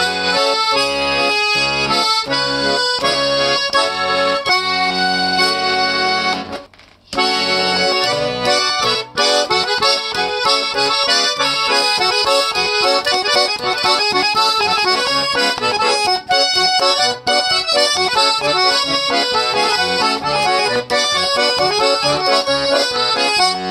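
A century-old amateur garmon (Russian button accordion) playing a lively tune with melody and accompanying chords, the notes changing quickly. The playing stops for a moment about seven seconds in, then carries on.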